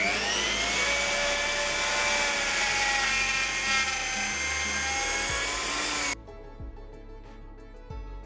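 Bosch hand router with a straight bit running at full speed, a steady high whine as it planes across an oak slab. The pitch is still rising at the start as it comes up to speed, and the sound cuts off suddenly about six seconds in, leaving background music.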